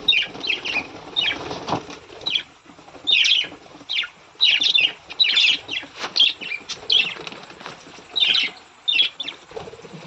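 A flock of budgerigars giving many short, quick chirps, with wing flapping among them.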